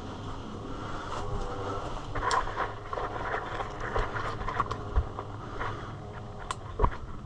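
Rustling and scraping, with scattered sharp clicks and a couple of low thumps in the second half.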